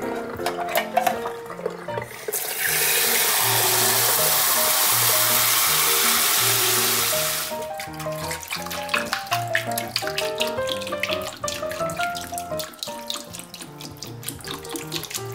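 Kitchen tap running hard for about five seconds, starting a couple of seconds in, as cold water pours onto freshly boiled eggs to cool them. Background music plays throughout.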